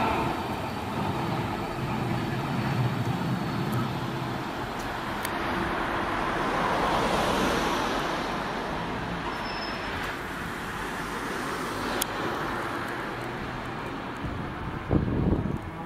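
Street traffic noise with a vintage Hiroshima Electric Railway 570-series tram, car 582, running on street track. The noise swells about seven seconds in as something goes by, and there is a single click near twelve seconds.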